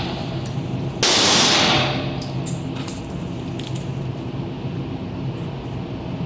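A single gunshot about a second in, ringing out with a long fading echo, following the tail of a shot just before. It is followed by a few light metallic clinks, which are spent casings landing, over a steady low hum.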